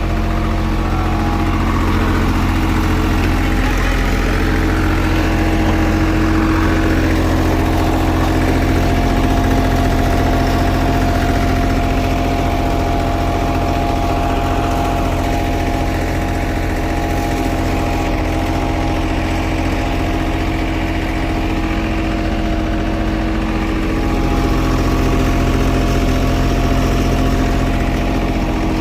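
Engine of asphalt paving machinery running steadily at a constant speed, a loud even hum.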